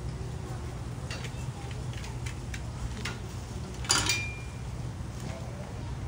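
Light clicks, then one louder clink of dishes or utensils about four seconds in with a brief metallic ring, over a steady low hum.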